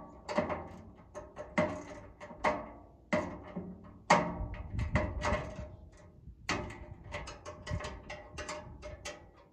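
Wrench tightening down the mounting bolts of an under-step RV storage box: a string of sharp, irregular clicks and clanks, some with a short ring after them.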